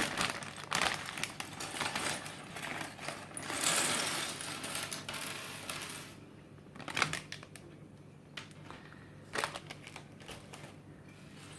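Plastic bag rustling and small Lego pieces clattering and clicking as they are tipped out and handled; after about six seconds the rustling stops and only a few scattered single clicks remain.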